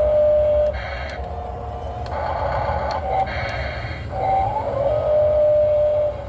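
Radio-controlled model excavator's electric hydraulic pump and motors whining as the arm works, the pitch holding and gliding with the load and rising and falling in a cycle that repeats every few seconds.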